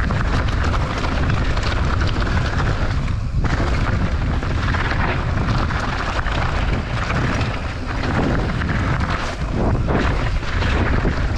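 Mountain bike descending a loose, rocky trail: tyres crunching over gravel and stones and the bike rattling, under heavy wind buffeting on the camera microphone. The suspension is set rock-hard and the tyres are still at full pressure.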